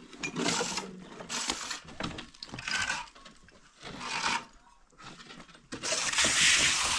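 Steel trowel scraping and spreading gritty cement mortar on top of a block wall, in five or six separate strokes; the last stroke, near the end, is the longest and loudest.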